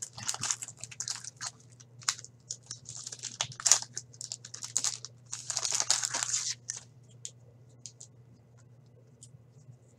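A hockey card pack's wrapper crinkling and tearing open in a series of rustling bursts. After about six and a half seconds it gives way to faint ticks as the cards are handled.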